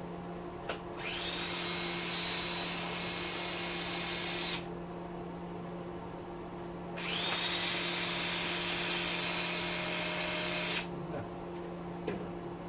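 Power drill with its two-speed gearbox spinning a socket in two runs of about four seconds each. Each run starts with a quick rising whine that settles to a steady speed.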